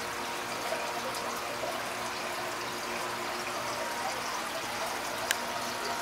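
Aquarium filter running: a steady trickle of water with a faint steady hum, and one sharp click near the end.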